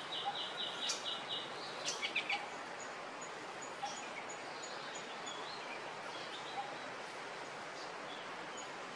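Forest ambience with a steady background hiss and bird calls. A quick trill of about seven high notes comes in the first second and a half, a few sharp chirps follow around two seconds in, and fainter chirps come later.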